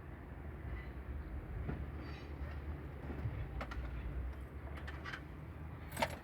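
Steady low machinery rumble, with a few light clicks scattered through it and a sharper click about six seconds in.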